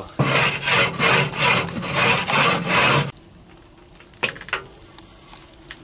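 A wooden board scraped back and forth across the top of a hot steel barrel stove, about two strokes a second for roughly three seconds. Two light knocks follow a second later.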